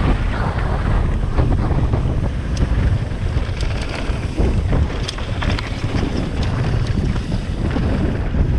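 Wind buffeting a helmet-mounted GoPro's microphone as a mountain bike descends a rough, rocky trail at speed, with a steady low rumble from the tyres and frame and scattered sharp clicks and knocks.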